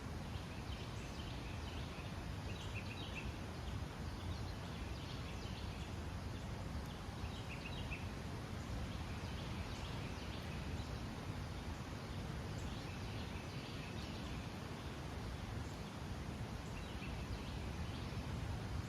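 Small birds chirping in short scattered bursts over a steady low rumble of forest background noise.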